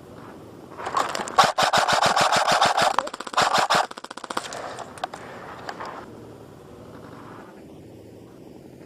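Airsoft electric gun firing full-auto bursts: a rapid rattle of shots starting about a second in and lasting about three seconds, then fainter bursts that die away by about six seconds.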